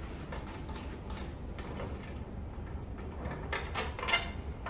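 Light clicks and knocks from chair parts and screws being handled during assembly, with a louder clatter of clicks near the end.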